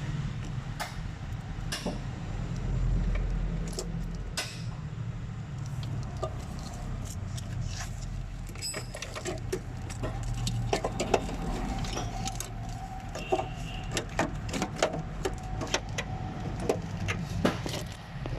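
Metal tools and parts clinking and clattering, with sharp clicks coming thick and fast in the second half, over a steady low hum.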